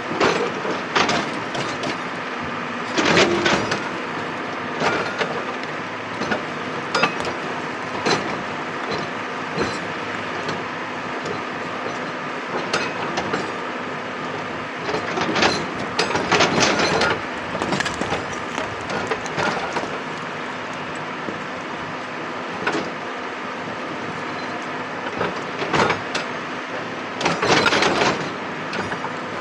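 Excavator engine running steadily, with irregular loud metallic clanks and scraping bursts as the machine works rock and earth.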